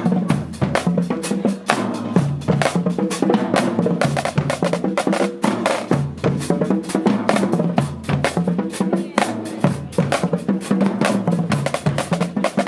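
Marching band drumline playing a fast cadence, with rapid snare strokes over tuned bass drums stepping through a pattern of low notes.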